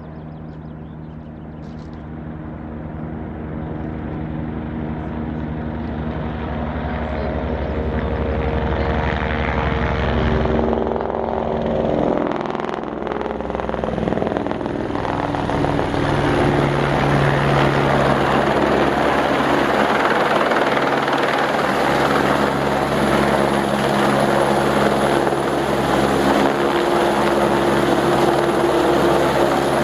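Helicopter carrying an underslung load on a long line, its rotor and turbine noise growing steadily louder as it approaches over the first half, then holding loud and close as it hovers overhead.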